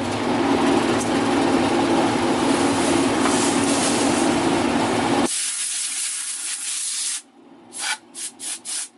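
An electric motor running with a steady hum under a rough rubbing noise, cutting off suddenly about five seconds in. Near the end come quick back-and-forth rubbing strokes, about three a second.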